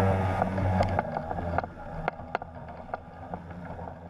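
Polini 250 single-cylinder two-stroke engine of a weight-shift trike ultralight running, throttled back about a second in to a lower idle while the trike taxis on skis. A few sharp clicks sound over the engine.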